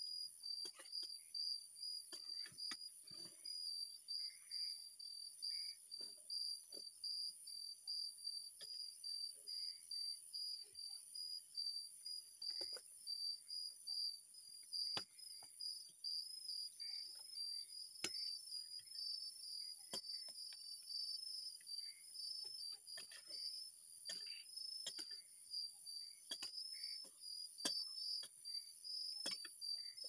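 Night-time insect chorus: a high pulsing chirp and a still higher steady trill, with scattered sharp clicks and knocks throughout.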